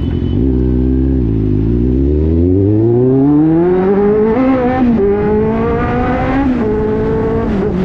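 Kawasaki Z800's inline-four engine under way, heard from the rider's seat: the revs drop briefly, then climb steadily through the gears, with a shift about halfway through. Near the end it eases off to a lower steady note.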